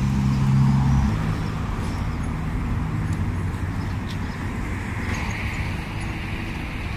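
Street traffic: a motor vehicle's engine hum that drops away about a second in, then steady road noise.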